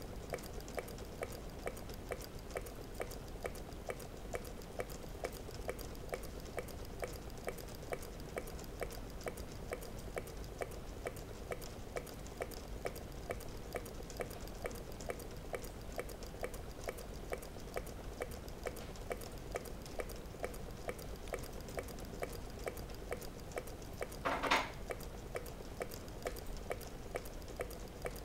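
Meccano-built Stirling engine running steadily, its mechanism clicking in an even rhythm several times a second over a steady hum. About 24 seconds in there is one brief, louder, higher-pitched sound.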